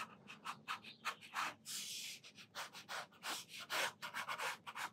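Sakura Micron fineliner pen drawing on sketchbook paper: a quick run of short strokes, about three a second, with one longer stroke about two seconds in.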